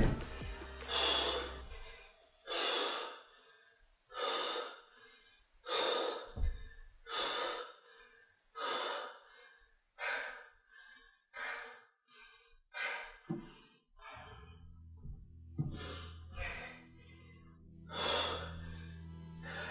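A woman breathing hard while doing lunges, loud panting breaths about once every second and a half.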